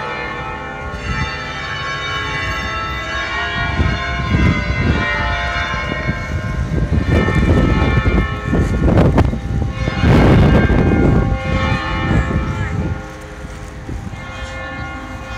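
Church bells ringing, many overlapping steady tones that hang on throughout. A low rumbling noise swells and fades through the middle and dies away about two seconds before the end.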